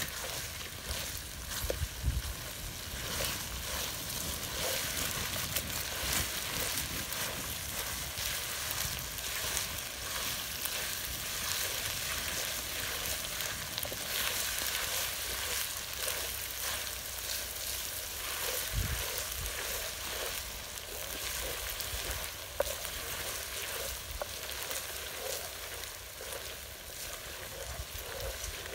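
Chicken pieces and dried red chillies sizzling and crackling steadily in oil in a large aluminium pan, stirred with a wooden spatula, with a few soft knocks of the spatula against the pan.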